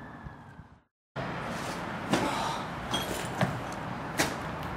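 Background hiss fading out into a brief total dropout about a second in, then a steady hiss with four short, sharp knocks spaced irregularly, under a second apart.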